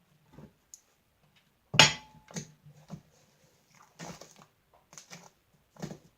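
Hands squeezing and kneading fluffy slime made from glue, shaving gel and borax water, giving a string of irregular wet pops and squelches, the loudest about two seconds in.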